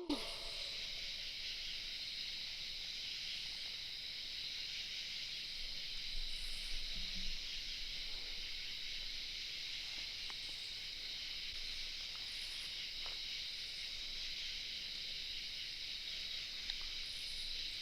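Night insect chorus: a steady, high-pitched continuous trilling with no change in level.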